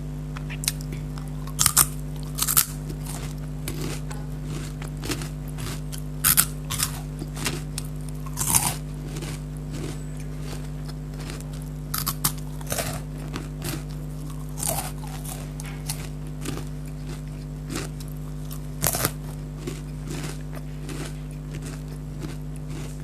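Kurkure corn puff snacks being bitten and chewed close to the microphone: sharp crunches at irregular intervals, with softer chewing between them. A steady low hum runs underneath.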